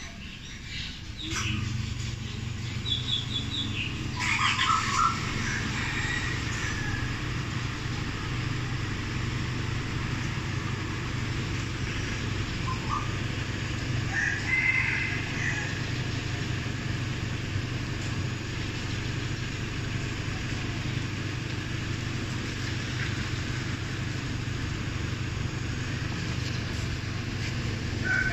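A car engine idling with a steady low hum that sets in about a second in. Bird calls come now and then over it, among them a rooster crowing.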